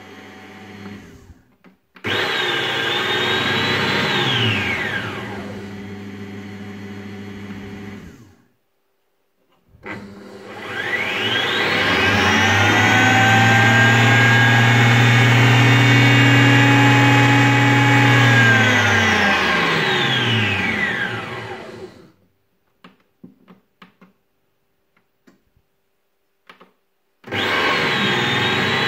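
Taurus Mycook 1.6 kitchen robot's blade motor whirring in separate runs. A short burst about two seconds in winds down. A longer run starting about ten seconds in rises in pitch, holds steady for about six seconds and winds down again. After a few faint clicks in the quiet, another burst starts near the end.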